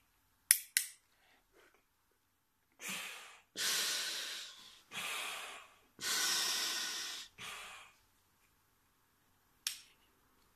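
Two quick clicks as the Ameo Powerbreather snorkel's head clamp is turned tight. Then about five loud, airy breaths are drawn in and blown out through the snorkel's mouthpiece and valves, and a single click comes near the end.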